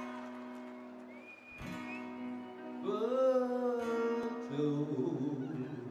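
Live band music: guitar notes ringing and sliding in pitch over a held chord.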